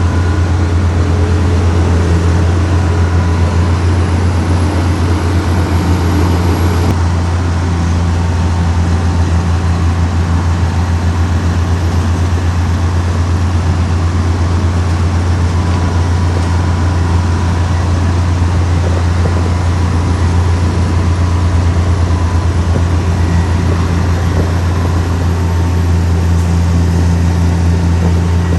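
Diesel engine of heavy earthmoving machinery running steadily, a deep continuous rumble.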